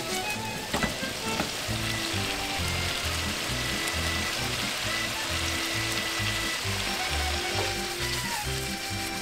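Spaghetti, sliced garlic and crown daisy stems boiling in a little oily water in a frying pan, bubbling and sizzling steadily. A few sharp clicks sound in the first second and a half. Background music with low notes plays underneath.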